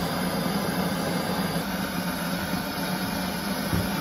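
Handheld gas canister torch burning with a steady hiss as it heats the steel tines of a forged grappling hook so they can be bent.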